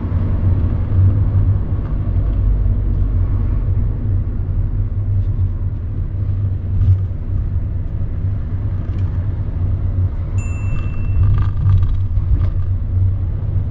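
Steady low rumble of a car's engine and tyres on the road, heard from inside the cabin while driving. A short high beep sounds about ten seconds in.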